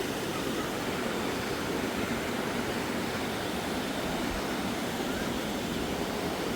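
Steady rush of river water running over the rocky cascades of the River Fowey.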